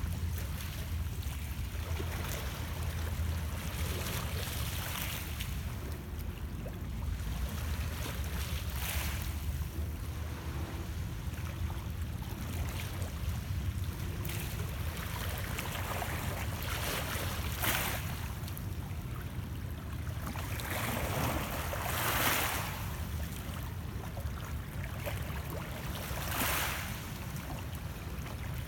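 Small Lake Ontario waves lapping and splashing gently against the shoreline rocks, a soft wash every few seconds, over a steady low rumble.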